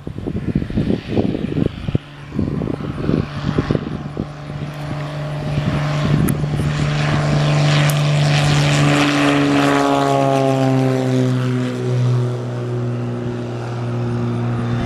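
Piper PA-32 Cherokee Six single-engine propeller plane at takeoff power. The drone of its six-cylinder engine and propeller swells as it rolls past, drops in pitch as it goes by, then settles into a steady drone as it climbs away.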